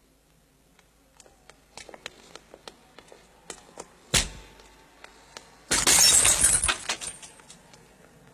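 Glass beer bottles smashing on pavement: a sharp crack about four seconds in, then a louder burst of shattering glass lasting about a second, tinkling away after.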